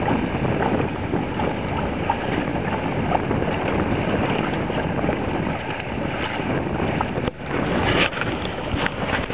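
Wind buffeting the microphone aboard a small sailing trimaran under way, with water noise from the chop. About seven seconds in the wind sound dips briefly, followed by a few knocks as the camera is moved.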